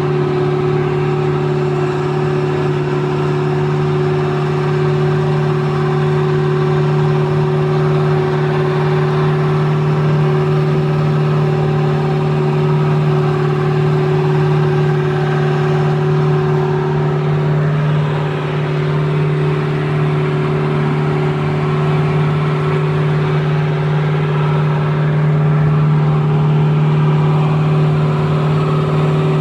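Small fishing boat's engine running steadily at a constant speed, a loud, even drone.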